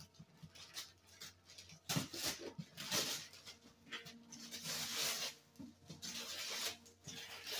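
Wrapping paper being ripped and crinkled off a gift box by hand, in several short bursts of tearing with a longer stretch of ripping about five seconds in.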